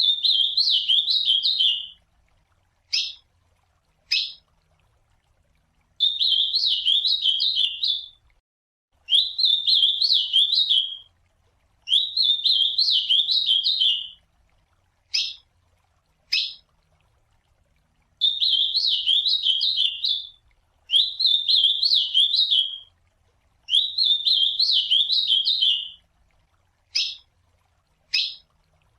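Ultramarine grosbeak (azulão) singing: seven short warbled song phrases of about two seconds each, repeated every few seconds. Single sharp call notes fall in the gaps between phrases.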